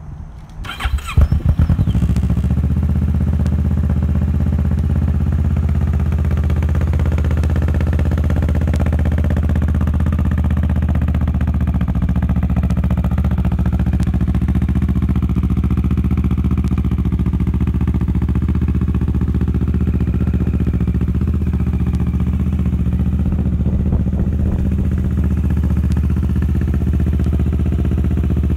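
2013 Kawasaki Ninja 650's parallel-twin engine through a Two Brothers aftermarket exhaust: it cranks briefly on the starter, catches about a second in, then idles steadily.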